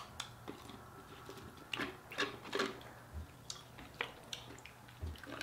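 Eating sounds of chicken wings and fries being eaten: chewing, with scattered short crisp clicks and crunches, a cluster of them about two seconds in.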